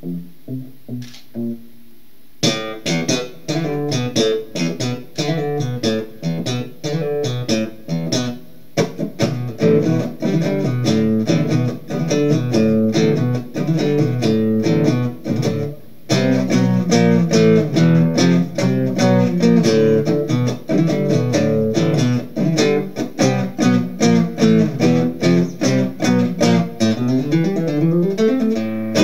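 Solo acoustic guitar playing an instrumental piece as single picked notes. It opens with a few sparse, quiet notes, and a fuller, louder picked pattern starts about two and a half seconds in and carries on with brief breaks.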